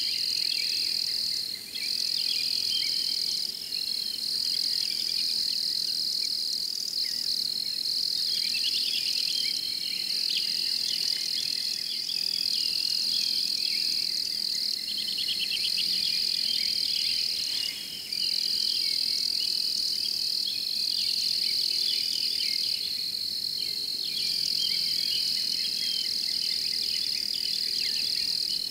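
Crickets and other insects chorusing: a steady high trill that drops out for a moment a few times, over a busier layer of softer chirps and pulses.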